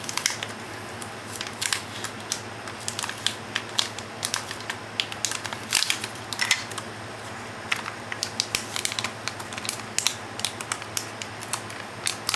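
Anti-static bag crinkling and crackling in quick, irregular bursts as it is unwrapped by hand from a 2.5-inch SSD.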